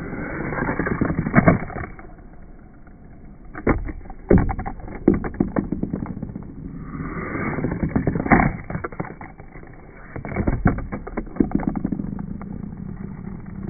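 Toy mini skateboard from a Tony Hawk Box Boarders figure rolling and clattering across a tabletop, with its small wheels rumbling and a run of sharp clacks at uneven spacing as it lands and knocks against the surface.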